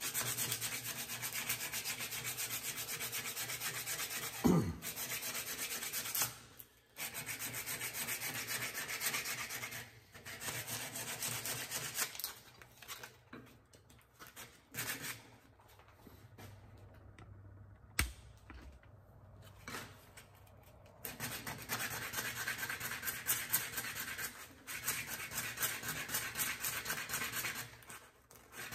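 Sandpaper rubbed by hand along a wooden hammer handle: a steady run of rasping back-and-forth strokes with short breaks, going much quieter for several seconds past the middle before picking up again. A brief falling squeak about four and a half seconds in is the loudest moment.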